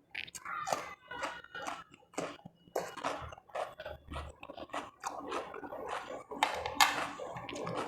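Close-miked chewing and crunching of food, a rapid irregular run of crisp mouth clicks and bites.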